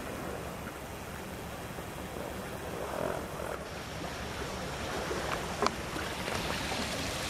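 Wind rumbling on the microphone: a steady noise, with one short sharp click about five and a half seconds in.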